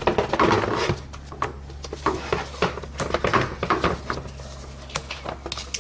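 Irregular plastic clicks, scrapes and rustling as a BMW E90's pollen filter is worked out of its housing under the bonnet, over a steady low hum.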